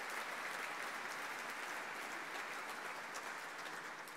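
Audience applauding, a dense patter of many hands clapping that starts to tail off near the end.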